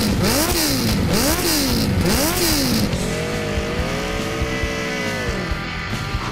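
Motorcycle engine revved hard three times, its pitch rising and falling with each blip, then held at high revs for a couple of seconds before dropping away.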